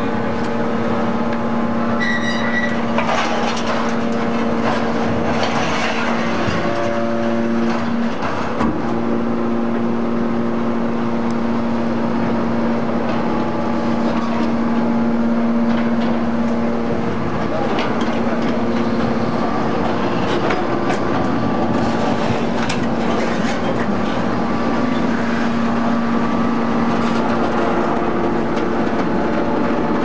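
Y81-3150 hydraulic scrap metal baler running: a steady machine hum with several held tones that come and go, and occasional sharp metal knocks.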